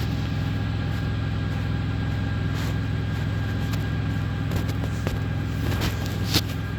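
Steady low mechanical hum, like an idling engine, with a few light clicks and rustles as the phone camera is handled and repositioned.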